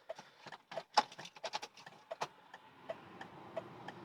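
Flasher relay ticking steadily inside the cab of a 1998 Mercedes ML320, about one and a half ticks a second, with a few louder sharp clicks from the key and controls around one and two seconds in. A faint low hum comes up in the second half.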